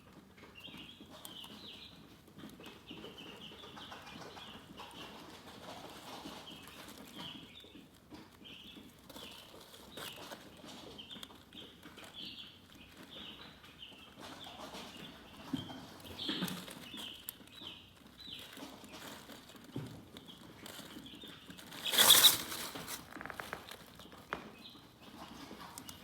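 Chickens chirping: a steady stream of short, high peeps, several a second, with a few soft knocks and one brief loud burst about 22 seconds in.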